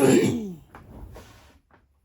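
A woman's single loud cough, with a voiced tail that falls in pitch over about half a second, from a cold that has left her hoarse. Faint small sounds follow.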